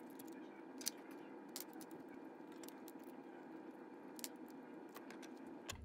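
Faint, scattered clicks and light scrapes of small metal parts of a model locomotive's chassis and motor being handled, over a low steady hum.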